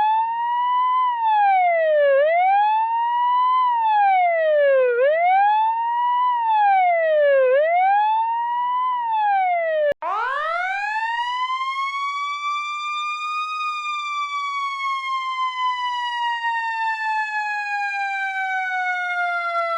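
Emergency-vehicle siren wailing, sweeping up and down in pitch about every two and a half seconds. About halfway there is a sudden cut to a second siren that winds up over a few seconds and then falls slowly in one long wail.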